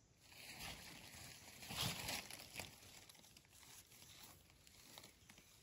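Dry leaf litter crackling and rustling as a knife digs and scrapes into the forest floor around a mushroom, in irregular scrapes with the loudest about two seconds in.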